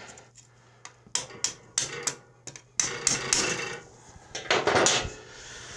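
Hand tools and metal engine parts being handled: a quick run of sharp clicks and taps, then rustling and scraping.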